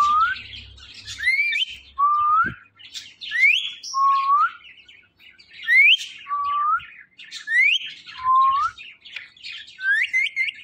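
Indian ringneck parakeet whistling the same two-part call over and over, about every two seconds: a quick upward sweep, then a lower, shorter rising note. Near the end it gives a few quick rising notes in a row.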